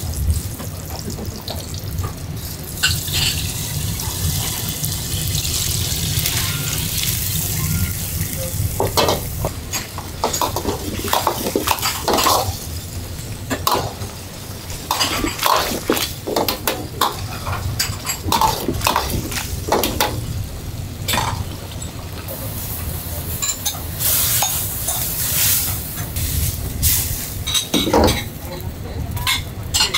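A metal ladle scraping and clanking irregularly against a wok while a sauce simmers and sizzles in it. Underneath runs the steady low rush of a gas wok burner.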